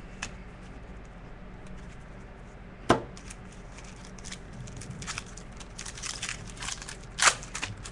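Trading card packs and cards being handled: scattered crackling and rustling, busier in the second half, with two sharp knocks, one about three seconds in and one near the end, over a low steady hum.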